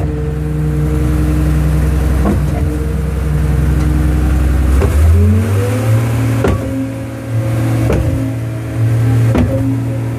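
Iveco mixer's engine running steadily, rising in pitch about five seconds in as it speeds up. A regular clank about every one and a half seconds as the mixing shaft and paddles turn.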